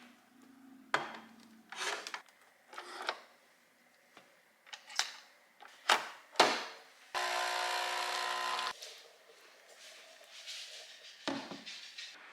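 Espresso machine in use: a series of short knocks and clicks, and about seven seconds in a steady pump buzz that lasts about a second and a half, followed by a few more knocks.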